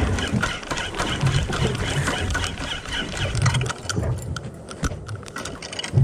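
Uneven low rumble aboard a small boat at sea, with scattered short clicks and knocks.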